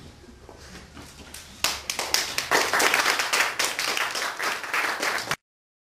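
Audience applauding: a few scattered claps about a second and a half in, quickly building into dense clapping, which cuts off abruptly near the end.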